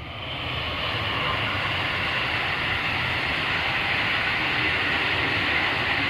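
Electric train passing on the nearby tracks: the steady rolling rumble and rattle of its wheels on the rails, swelling over the first second and then holding.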